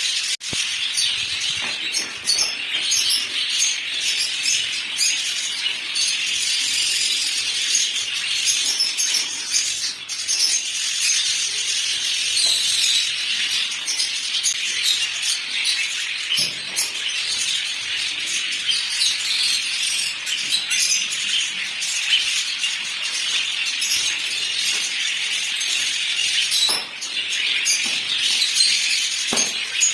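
A flock of small cage birds chirping and chattering together without pause, a dense high twittering with scattered clicks and short calls.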